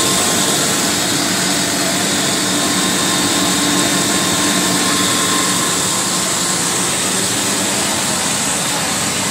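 Food extrusion production line machinery running steadily, making a constant, even hiss with several steady whining tones and no breaks.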